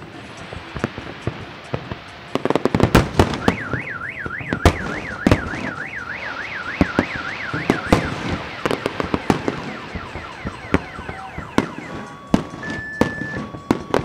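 Aerial fireworks bursting in a quick run of sharp bangs. A car alarm wails rapidly up and down for about four seconds in the middle, then gives way to falling chirps and short steady beeps near the end.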